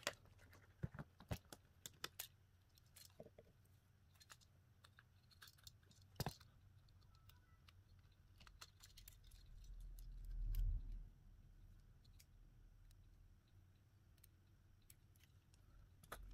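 Faint, scattered clicks and light taps from small tools and phone parts being handled, thickest in the first couple of seconds, with a low thud about ten seconds in.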